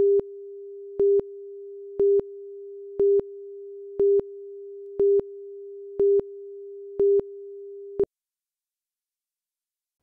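Countdown leader tone: one steady electronic tone with a louder beep marking each second as the numbers count down, eight beeps, then a last short blip about eight seconds in where the tone cuts off.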